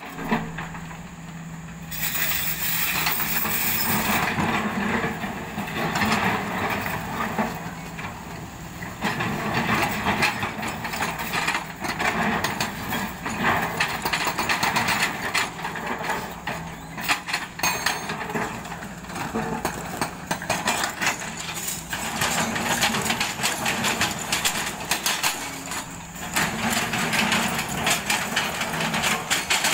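Hydraulic breaker on a Kobelco excavator hammering rock in rapid, steady blows, in stretches of several seconds with short pauses, over the drone of the excavators' diesel engines. Rock clatters and scrapes as a second Kobelco SK140 excavator's bucket digs and shifts the broken stone.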